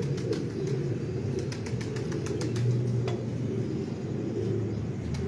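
Domestic pigeons cooing steadily, with a scatter of light clicks in the first few seconds.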